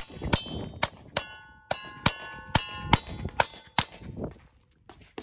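Single-action revolver shots fired in quick succession at steel targets: about ten shots, roughly two a second, many of them followed by the ringing clang of struck steel plates. The firing stops about four seconds in.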